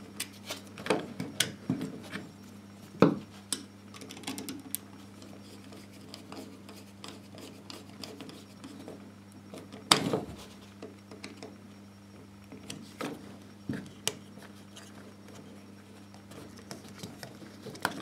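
Small clicks and scrapes of a screwdriver working a terminal screw on a metal-plated dimmer switch while the switch is handled, with one louder knock about ten seconds in. A faint steady low hum sits underneath.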